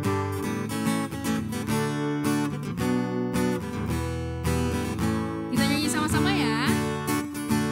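Acoustic guitar strummed steadily, playing the introduction to a worship song. A short wavering voice sounds over it about six seconds in.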